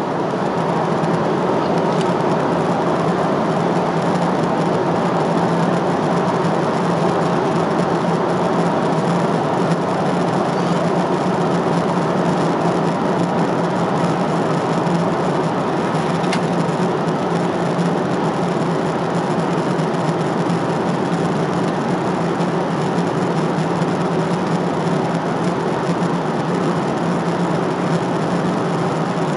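Steady cabin noise of a jet airliner at cruise: engine and airflow noise heard inside the cabin at a window seat, with a steady low hum under it.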